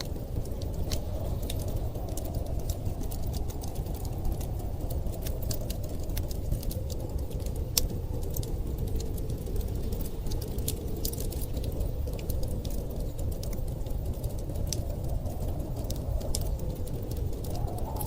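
Wood fire crackling, with frequent sharp pops, over a steady low rumble of storm wind.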